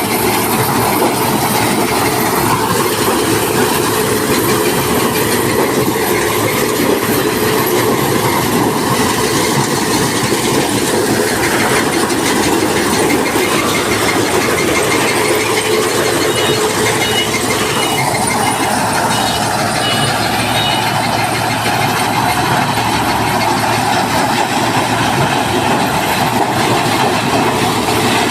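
Zoomlion corn harvester running, a steady, dense mechanical clatter at an even level.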